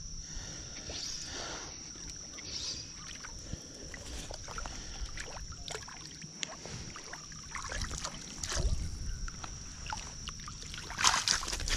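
Hooked fish splashing and thrashing at the water's surface as it is played in on a fly line, with scattered small splashes and a louder burst of splashing near the end as it comes to the landing net. A steady thin high-pitched hum runs underneath.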